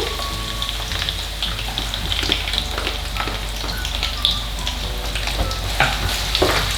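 Garlic frying in hot oil in a wok, a steady sizzle with many small crackles and pops, and a few sharper knocks near the end.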